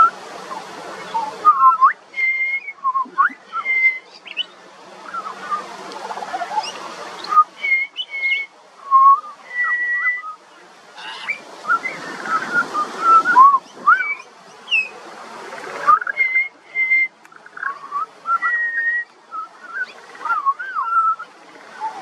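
Juvenile pied butcherbird singing: a string of short, clear whistled notes, many gliding up or down in pitch and some held on one pitch, in irregular phrases.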